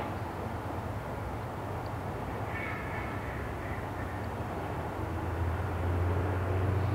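Outdoor ambience dominated by a low, steady rumble of distant engine noise, which grows louder in the last couple of seconds. A bird calls about two and a half seconds in.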